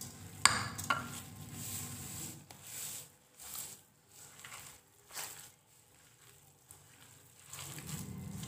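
Hands kneading a moist chopped chicken and lentil kebab mixture in a stainless steel bowl: irregular soft squishing strokes, with two sharp clicks against the bowl about half a second in. A low hum comes in near the end.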